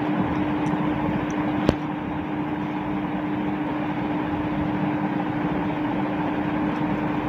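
A steady machine hum with a whooshing noise, like a running motor, and one sharp click about a second and a half in.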